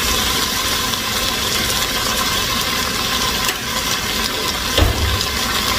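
Onion-tomato curry paste sizzling and bubbling steadily in an uncovered stainless steel pot as it is cooked down. There is a single low bump about five seconds in.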